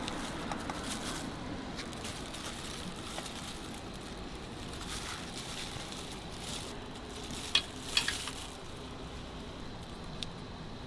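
Kitchen scissors snipping food over metal bowls: a few sharp metallic clicks, two close together about three-quarters of the way through and a fainter one near the end, over a steady hiss.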